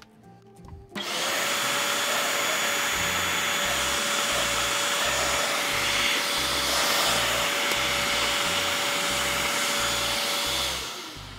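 Electrolux Twin Turbo upright vacuum cleaner, freshly reassembled, switched on for a test run: the motor spins up about a second in and runs with a steady whine over rushing air, then is switched off near the end and winds down, its pitch falling.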